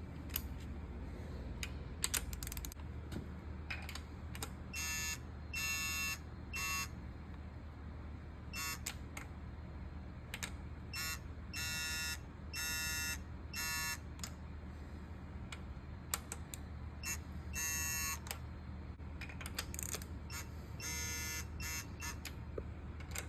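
Torque wrench beeping in about twenty short bursts while VQ35DE head studs are tightened toward 30 ft-lb, the signal that the set torque is being reached on each pull; the reading barely climbs because the head gasket is still crushing. A low steady hum runs underneath.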